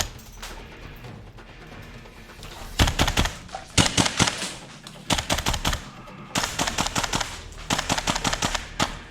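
Airsoft rifles firing rapid full-auto bursts in close quarters, several bursts starting about three seconds in after a short lull, each a quick string of sharp shots.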